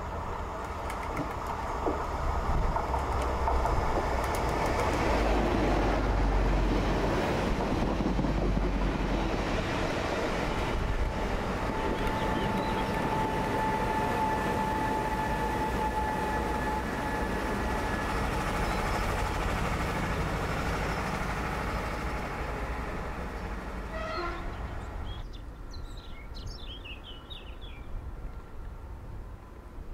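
A diesel works train of yellow track-maintenance machines passing close by: a heavy low engine rumble with wheels running on the rails, fading as it moves away. A steady high tone sounds for several seconds near the middle, and small birds chirp near the end.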